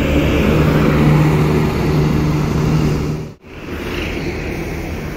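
Intercity coach's diesel engine running with a steady drone and tyre noise as it pulls away close by. About three seconds in the sound breaks off abruptly and gives way to lighter road traffic, a car passing.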